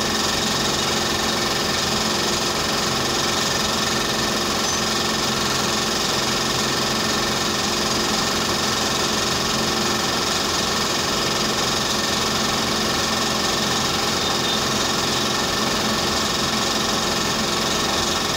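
Dental clinic equipment running with a steady machine hum and several fixed tones over a hiss, unchanging throughout.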